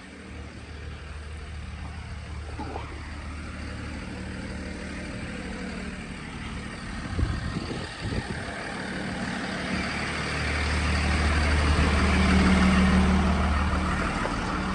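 Delivery vehicle driving: steady low engine hum with road noise that grows louder about two-thirds of the way in, and a couple of short knocks around the middle.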